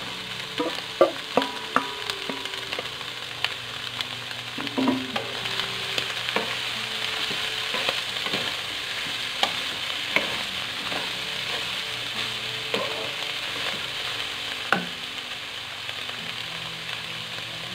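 Chopped beef offal sizzling in hot oil in a wok as it is sautéed with onion and garlic. A wooden spatula stirs and knocks against the pan, and there are a few sharp clacks in the first two seconds as the last pieces are tipped in from a metal bowl.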